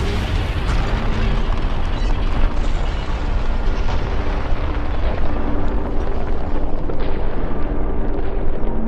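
Explosion sound effect: a loud, continuous deep rumble with crackling, with faint music tones underneath.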